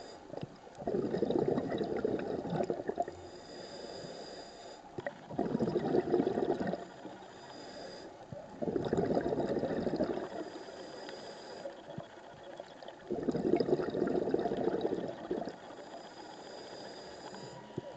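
Scuba diver breathing through a regulator underwater. A quieter inhale with a thin high hiss alternates with a long burst of bubbling exhaust bubbles, about every four seconds. Four exhales are heard, and a fifth begins at the very end.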